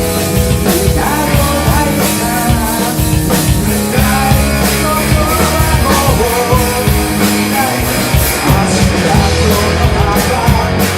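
Rock band playing: drum kit, bass and a singer, loud and continuous.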